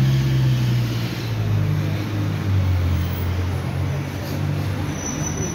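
City street traffic: a motor vehicle's engine giving a steady low hum over general road noise.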